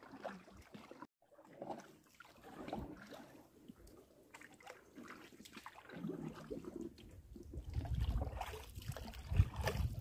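Water splashing and dripping from paddle strokes as a small wooden canoe is paddled along, with short knocks against the hull. A low rumble builds in the second half, and a louder knock comes near the end.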